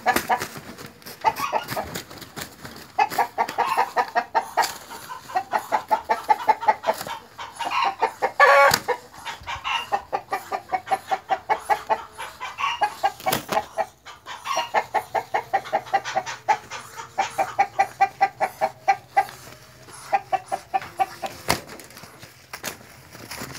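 Chicken clucking in repeated runs of rapid short notes, with a few sharp thumps from a gamecock scuffling with a Muscovy duck.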